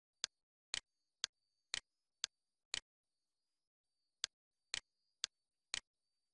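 Sharp, dry clicks about two a second, every other one a quick double click, pausing for about a second and a half midway.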